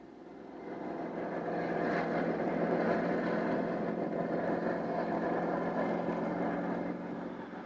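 Aircraft engines running, a steady drone with a constant hum that builds over the first second or two and eases off near the end.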